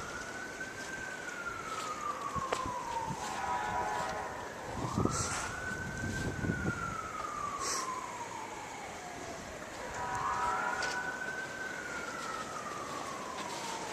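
Emergency vehicle siren on a slow wail: three cycles, each climbing quickly and then falling slowly over about four seconds.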